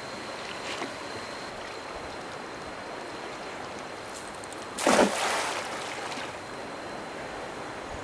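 Steady rush of flowing river water, with one sudden loud splash about five seconds in that dies away over about a second.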